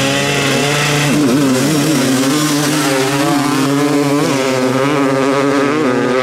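250-class two-stroke dirt bike engines revving hard at a drag race start, their pitch swooping up and down as the bikes launch and pull away.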